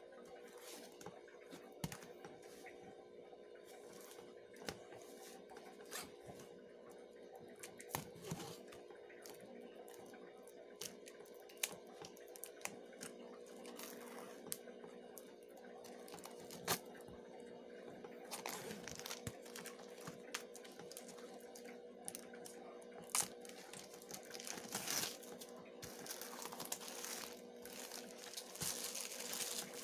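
Clear plastic shrink wrap being torn and peeled off a cardboard puzzle box, with scattered crinkles and crackles that become denser and louder in the last third.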